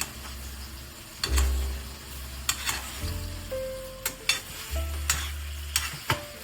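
Chicken sizzling in a frying pan, a steady frying hiss with several sharp clicks of a utensil against the pan as it is stirred and turned. Soft background music with held notes and bass plays underneath.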